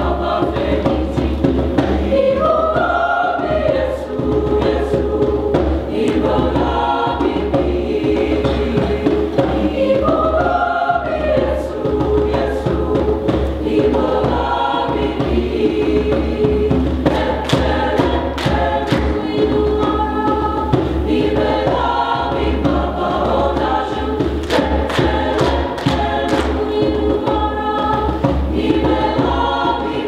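High school mixed choir, girls' and boys' voices, singing in several parts. A short melodic phrase recurs every few seconds.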